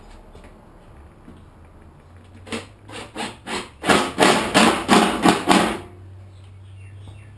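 Hammer blows on a wooden board at the bottom of a door: about a dozen sharp strikes that start light and build into quick, loud blows about three a second, then stop.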